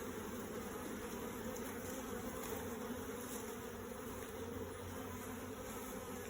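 Steady buzzing hum of a mass of honey bees swarming around an opened hive, agitated by the hive being taken apart.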